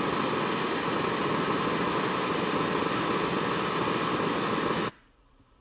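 Pink noise test signal played full range through an Audio System XM 165 Evo mid-bass speaker for a frequency-response measurement: a steady rushing hiss that cuts off suddenly about five seconds in.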